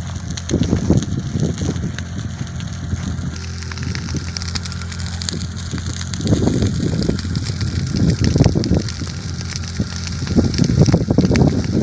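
Wind gusting on the microphone in irregular swells, with fine crackling from a burning dry grass and brush fire over a steady low hum.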